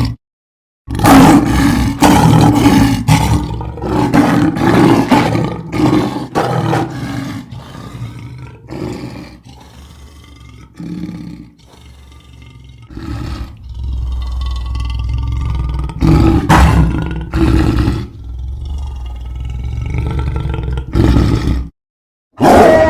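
Cartoon lion roar sound effect: a long run of ferocious roars and growls in repeated surges, starting just under a second in and cutting off shortly before the end, with a quieter stretch midway.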